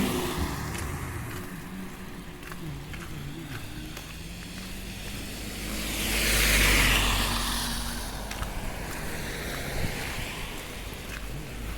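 Street traffic: a car passes, its tyre noise swelling and fading about six to eight seconds in. Under it runs a steady low wind rumble on the phone's microphone.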